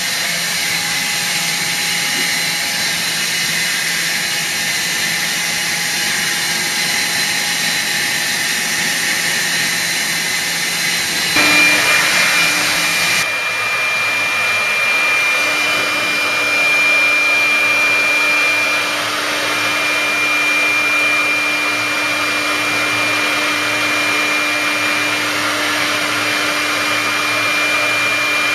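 A 1995 Busellato Supereasy CNC router running: a steady, loud rushing whir of machinery. A high steady whine joins about eleven seconds in, and the overall sound shifts abruptly a couple of seconds later.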